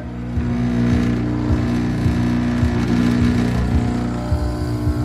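Breville espresso machine's pump buzzing steadily as it pulls an espresso shot, a constant hum with low pulsing underneath.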